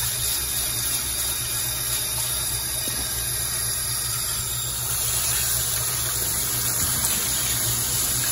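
Kitchen faucet running steadily into a stainless-steel sink, the stream pouring through rice in a mesh strainer as a hand stirs the grains to rinse them.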